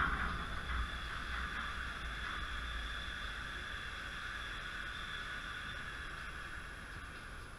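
Chain-link fence vibrating under a player leaning on it: a steady rattling hiss with a low rumble that fades slowly.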